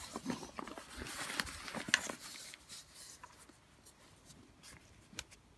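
Rustling of the stroller baby nest's fabric with small clicks from its plastic parts and frame as it is handled, busiest in the first two seconds, with one sharp click about two seconds in; quieter handling noises after that.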